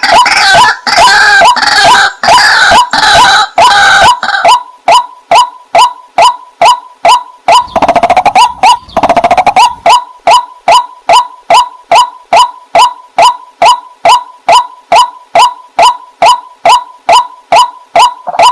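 Waterhen calling: a run of overlapping harsh calls, then a steady, monotonous single note repeated about two and a half times a second.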